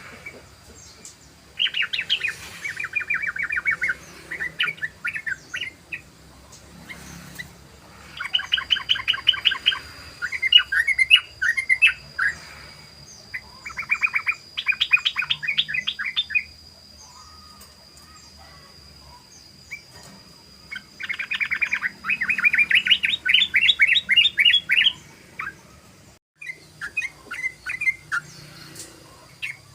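Yellow-vented bulbul (trucukan) giving its fast rolling 'ropel' chatter in about five bursts of roughly two seconds each, with scattered single notes between them.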